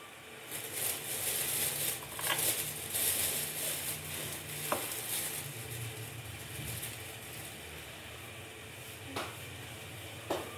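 Aluminium saucepan of water and jaggery heating on a gas burner, the jaggery melting into syrup. A light crackling sizzle for the first few seconds thins out over a low steady hum, with a few faint clicks.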